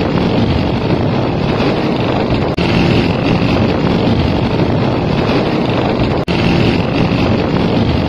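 An old motorcycle engine running steadily as the bike rides along, a dense rumbling exhaust mixed with wind noise. The sound drops out for a split second twice.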